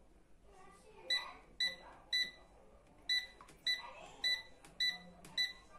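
Cecotec Cecofry Advance 5000 air fryer's control panel beeping as its buttons are pressed: about eight short, identical beeps roughly half a second apart, in two runs with a brief pause between them.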